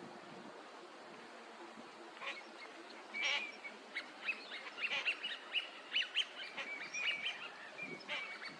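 Eurasian teal calling: short, high whistled notes, one sharp call about three seconds in, then a quick run of many notes over the next few seconds, and one more near the end.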